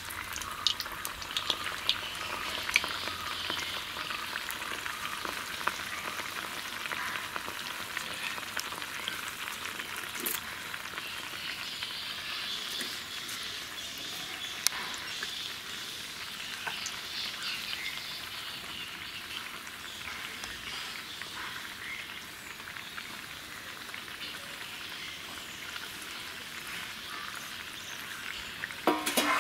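A neyyappam, a rice and jaggery batter fritter, deep-frying in moderately hot oil in an iron kadai, its second side cooking after being turned. The oil sizzles and crackles steadily with scattered sharp pops, easing a little past the middle, and there is a brief clatter at the very end.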